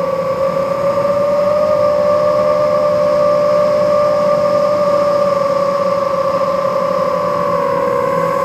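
FPV racing drone's brushless motors and propellers whining steadily in flight, the pitch dipping slightly near the end, picked up close by the camera mounted on the drone itself.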